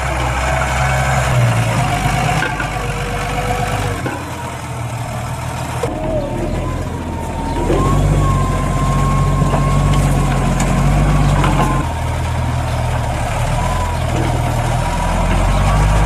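Massey Ferguson 5475 tractor engine working under load while pulling a three-furrow reversible plough through the soil. A low engine hum carries a thin, high whine that wavers slightly in pitch, and it grows louder about halfway through.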